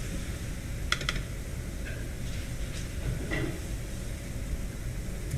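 Steady low room hum, with two sharp clicks close together about a second in and a few fainter knocks afterwards, from hands working a laptop on a lectern.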